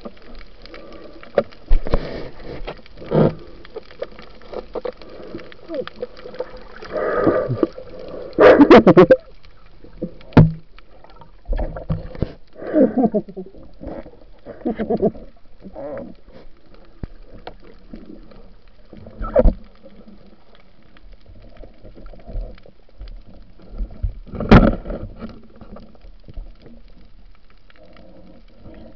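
Muffled underwater noise through a diving camera's housing: irregular gurgles and bubble bursts over a steady low hiss, with a few sharp knocks, the loudest about a third of the way in and again about three-quarters through.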